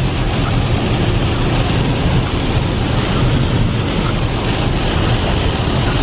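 Heavy rain and road spray on a car at highway speed, heard from inside the cabin: a loud, steady rush of water and tyre noise.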